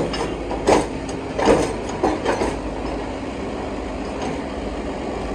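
Tractor engine running steadily while its hydraulic tipping trailer unloads a load of sand, with several clattering knocks in the first two and a half seconds.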